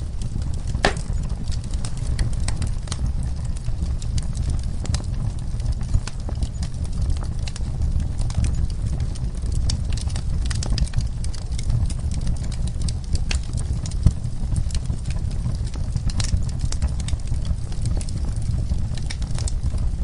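Wood fire burning in a fireplace: a steady low rumble of flames with frequent irregular crackles and pops from the burning log, and a sharper pop about a second in.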